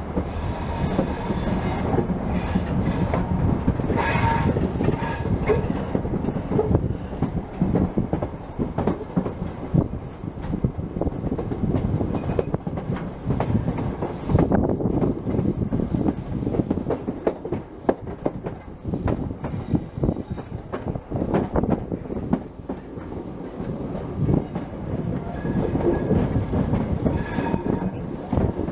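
An HST passenger train running over the tracks, heard from an open carriage window: a steady rumble and rush of air, dense with clicks and clatter of the wheels over rail joints and pointwork. Brief high wheel squeals come about a second in, around four seconds in, and again near the end.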